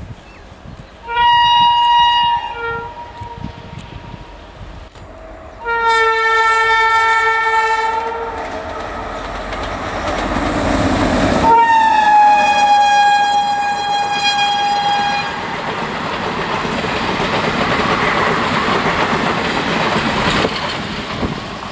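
Indian Railways locomotive horns sounding three blasts, the last one sliding slightly down in pitch as the locomotive passes. Then the steady rumble and clickety-clack of passenger coaches rolling by close at speed.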